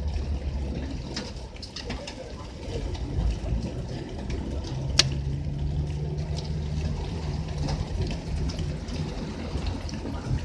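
Moving vehicle heard from inside the cabin: the engine rumbles and the tyres swish through flood water on the road. Scattered sharp ticks come through, with one louder click about halfway through, and an engine note rises and holds for a few seconds after that.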